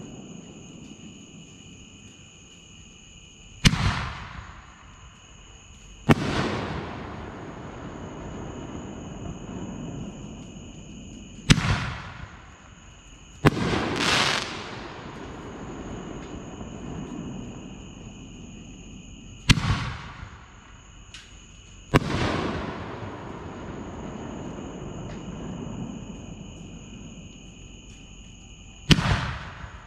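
5-inch canister firework shells fired in turn. Each shell gives a sharp mortar launch thump, then about two seconds later a loud break bang that trails off in a long rolling echo. This happens three times, with a fourth launch near the end. The middle break is followed by a second or so of crackling.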